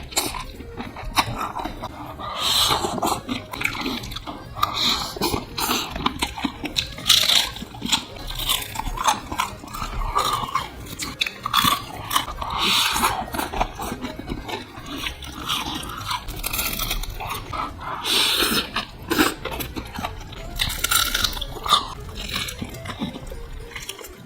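Close-miked eating: a person biting and chewing food, with a continuous run of crunches and mouth clicks.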